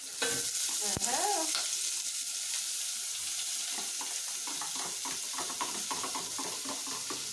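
Boiled tripe (matumbo) going into a pan of hot oil, with a sudden loud sizzle that then carries on steadily as the tripe fries. A single sharp knock about a second in.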